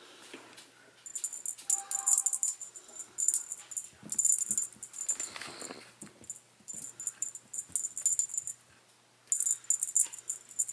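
Small jingle bells on a cat teaser toy jangling in quick, irregular shaken bursts as a kitten plays with it, with a short lull near the end.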